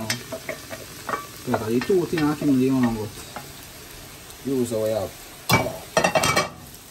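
Ackee and saltfish frying in oil in a pot while being stirred: a steady sizzle, with the spatula scraping the pot in long, low-pitched scrapes and knocking against it several times near the end.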